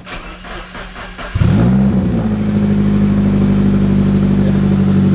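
Nissan 240SX's KA24DE four-cylinder engine cranking on the starter for about a second and a half, catching with a brief rev, then settling into a steady idle. The engine is running with an exhaust leak from a missing exhaust bolt.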